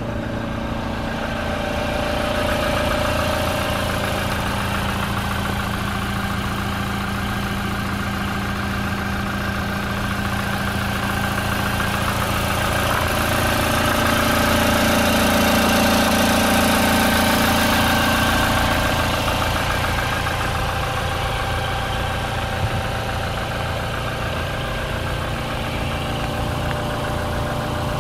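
Toyota Hilux's 2.8-litre turbodiesel four-cylinder idling steadily, swelling louder for several seconds midway.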